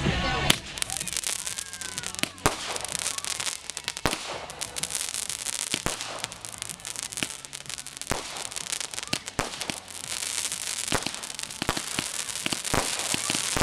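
A ground firework throwing up a column of sparks: a steady hiss with dense crackling, broken by sharp pops about once a second.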